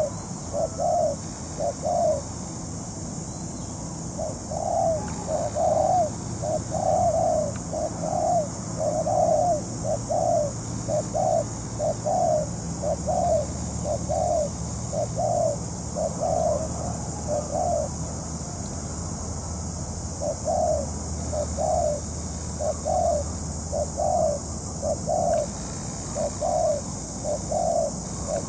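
Spotted dove cooing: a long run of short coos at about one a second, broken by two pauses of a couple of seconds, over a steady high hiss.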